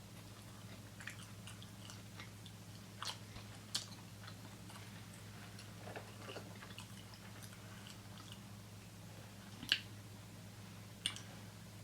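Close-miked mouth sounds of someone eating: soft wet chewing and smacking clicks, with sharper clicks about three and four seconds in and twice near the end, over a faint steady low hum.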